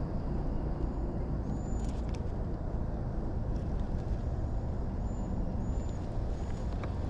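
Steady low rumble of wind buffeting the microphone, with a few faint, short, high bird chirps over it.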